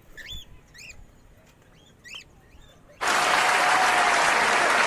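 A few short, high chirping calls, then about three seconds in a loud burst of applause starts abruptly at a flat, even level, like an edited-in applause sound effect.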